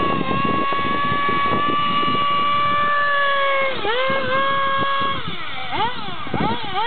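Small nitro (glow-fuel) engine of a radio-controlled drift car running at high revs, its note held high for a few seconds with a brief dip about four seconds in. It then drops off and is blipped up and down rapidly near the end.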